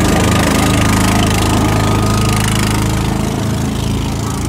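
Kubota two-wheel tractor's single-cylinder diesel engine running loud and steady as it races through the mud, growing a little fainter near the end.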